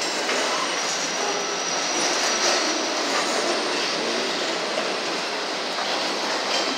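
Autorack freight cars rolling steadily past, with a continuous rumble and clatter of steel wheels on the rails. A thin, high wheel squeal sounds over it for the first couple of seconds.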